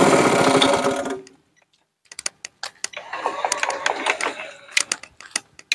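Small engine of a remote-controlled tracked mower running steadily, cut off abruptly about a second in. After a second of silence come scattered sharp clicks and light rattles.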